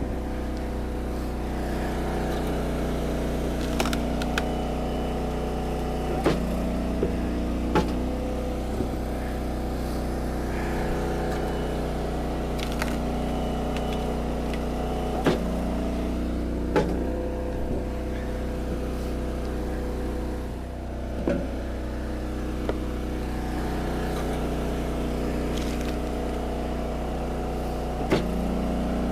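Eastonmade 22-28 log splitter's engine running steadily while its note shifts every few seconds as the ram works, with sharp cracks and knocks of wood splitting and falling pieces scattered throughout.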